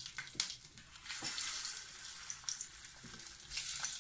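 Pieces of pork sausage sizzling in hot oil in a frying pan, a steady high hiss, with a few short clicks and taps as more pieces are dropped into the pan.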